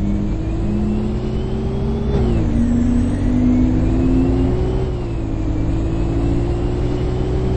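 Bus heard from inside the passenger cabin, its drivetrain whine rising as it picks up speed. The whine drops sharply about two seconds in and again near five seconds, climbing again each time, over a steady low drone.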